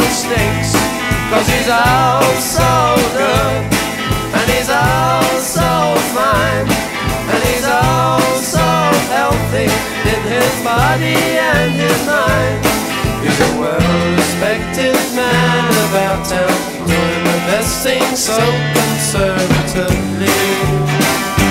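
A song with a sung melody over guitar, bass and drums, with a steady beat.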